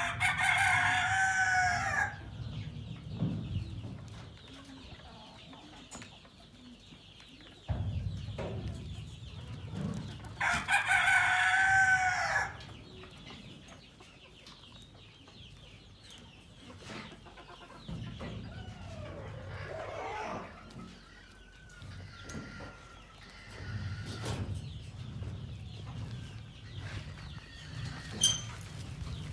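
A rooster crowing loudly twice, each crow about two seconds long, the first at the start and the second about ten seconds in, with fainter chicken and farm-animal calls between them.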